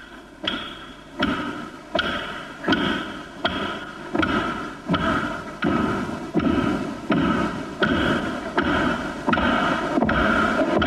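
A drum struck in a slow, even beat, about three strikes every two seconds, growing louder. Each beat rings on in the large, echoing church.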